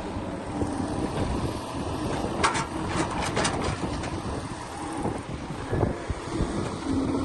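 Diesel engine of heavy earthmoving machinery running steadily, with a cluster of sharp metallic clanks about two and a half to three and a half seconds in.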